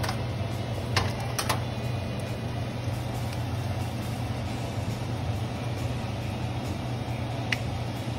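Dried red chilies frying in hot oil in a nonstick wok, under a steady low mechanical hum. A metal ladle clicks lightly against the pan a few times, about a second in and again near the end.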